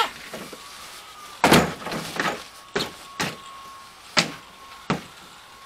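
A plastic ride-on toy car being knocked and bumped about: about six sharp, irregular knocks over a few seconds.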